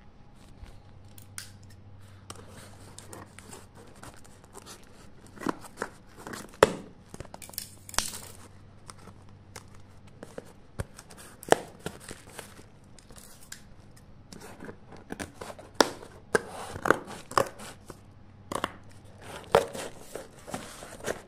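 A tape-wrapped shipping parcel being cut open with scissors and torn by hand. Irregular sharp snips and snaps mix with the tearing and crinkling of packing tape and plastic wrap.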